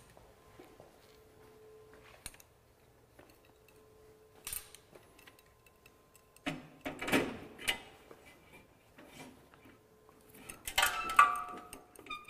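Metal crossbar being handled and fitted onto the calibration target frame: scattered light clicks and knocks, a louder clatter about seven seconds in, and ringing metallic clinks near the end.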